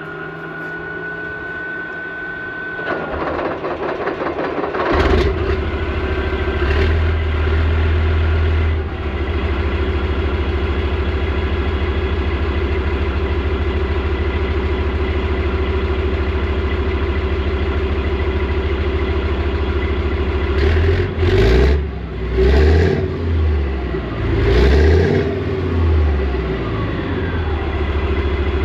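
Leopard 1 tank's MTU V10 multi-fuel diesel being started. A high whine for a few seconds, then cranking, and the engine catches with a loud burst about five seconds in. It settles to a deep, steady idle, with a brief rise in revs soon after and four or five short revs blipped near the end.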